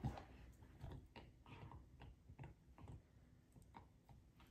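Bernese mountain dog gnawing a hard chew treat: faint, irregular clicks of teeth on the hard chew, about three or four a second, with a louder knock at the very start.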